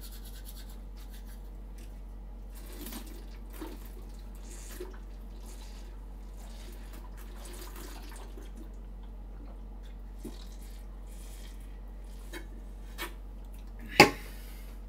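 Quiet wet sounds of liquid poured from a bottle into a mouth and splashing, with toothbrushing and scattered small clicks. About a second before the end, one sudden loud spit as the mouthful is spewed out.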